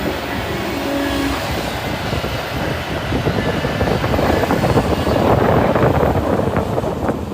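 Hydraulic excavator working: a dense, steady engine-and-machinery noise that grows louder about four seconds in.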